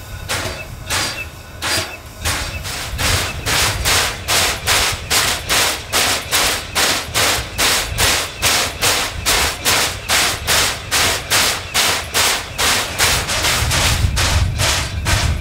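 JNR Class C56 steam locomotive C56 160 starting off, its exhaust chuffs quickening from about two to about three a second as its driving wheels slip (空転) on departure.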